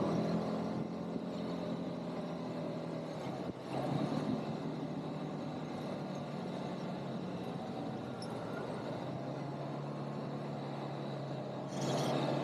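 ATV (quad bike) engine running during the ride, its note stepping down about three and a half seconds in. A brief rush of louder noise comes near the end.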